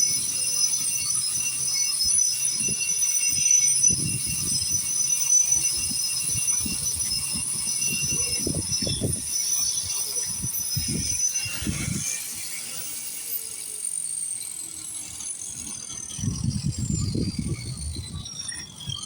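Power grinder running with a steady high whine, grinding paint off a concrete foundation wall, the disc scraping against the surface in uneven surges. Over the last several seconds the whine falls steadily in pitch.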